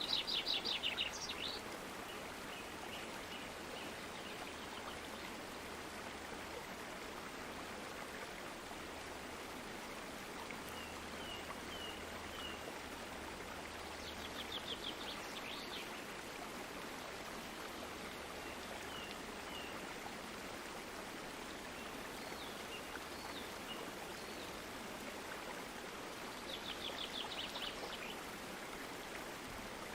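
A stream flowing steadily, with birds singing over it. There are fast trills at the start, about halfway through and near the end, and short repeated chirps in between.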